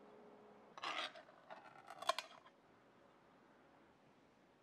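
Faint kitchen handling sounds: a brief scrape, then a few light clicks and clinks of crockery or cutlery, one sharper than the rest.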